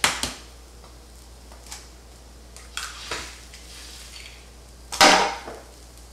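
Eggs being knocked and cracked on an electric griddle: several sharp knocks and clatters, the loudest about five seconds in, over a faint frying sizzle.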